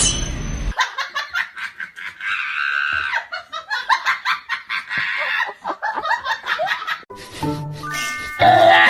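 High-pitched laughter in quick bursts for about six seconds, with music playing briefly at the start and again near the end.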